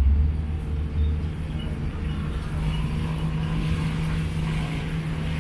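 Small motorboat's engine running steadily with a low drone and a steady hum, dipping a little in loudness just at the start. A faint hiss of water runs along the hull.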